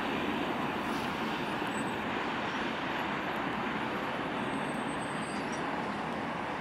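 Freight cars rolling past on steel wheels: a steady rumbling rush of wheels on rail that eases slightly toward the end.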